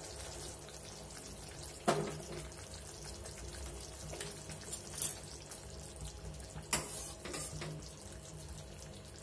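Thick red curry bubbling at a boil in a kadhai, with a few short knocks and plops as pieces of fried paneer go into it.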